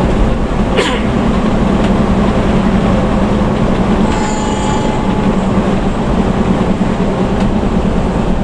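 Scania bus engine running steadily at road speed, with tyre and road noise, heard from inside the cabin. A short click sounds about a second in.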